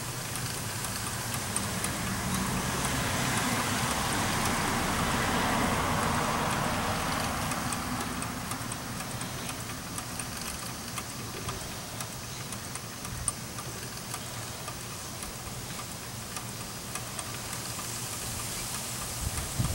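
Wilesco D366 live-steam model traction engine, heated by a gas burner, ticking over slowly: a steady hiss with light, quick ticks from the running engine. The hiss swells for a few seconds after the start, then eases.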